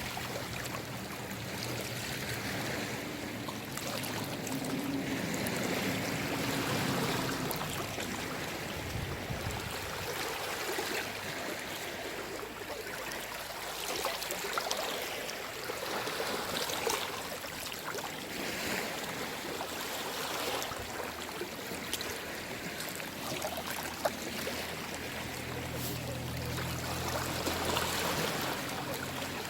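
Small waves of a calm sea lapping and washing over the shore, a steady rush of water with gentle rises and falls and small splashes.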